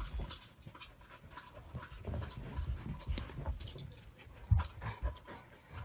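A dog panting in short, irregular breaths, with scattered light clicks and taps.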